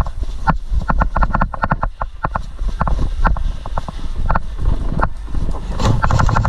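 Airsoft guns firing: scattered sharp pops, then a rapid burst of about ten shots a second near the end. Under them is a steady low rumble of wind and handling noise on the moving body-worn camera.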